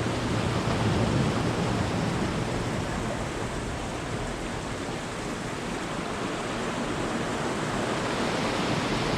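Ocean surf washing on the shore as a steady rushing noise, swelling slightly about a second in, with the tide rising and the waves hitting harder.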